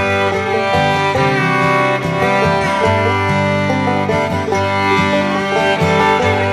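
Background music: a bluegrass-style tune with fiddle and guitar, playing steadily.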